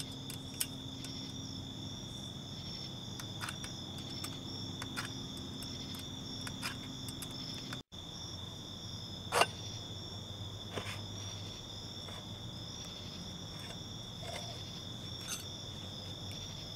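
Crickets trilling steadily, with scattered light clicks and one sharper click about nine seconds in from an Allen wrench unscrewing the muffler's removable insert.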